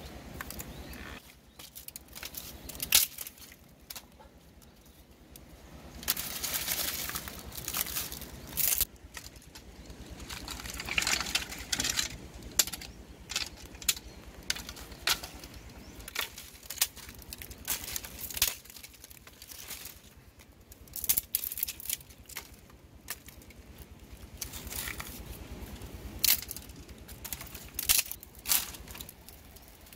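Dry twigs and dead leaves being handled and dragged: rustling and crunching with many sharp snaps of breaking sticks, and longer stretches of rustling about six and eleven seconds in.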